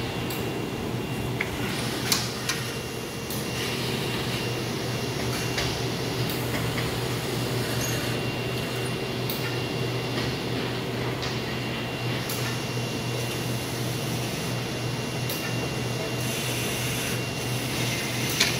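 Presstek Dimension 225 computer-to-plate unit running, a plate moving through its rollers: a steady mechanical hum with a faint high whine, with a couple of sharp clicks about two seconds in and another near the end.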